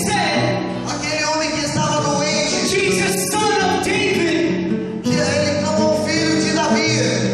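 Church worship music: a voice singing over sustained accompanying chords.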